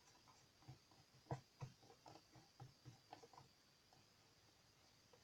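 Near silence with faint, irregular soft taps and brushing of a paintbrush being worked over a box, two slightly louder knocks about a second and a half in.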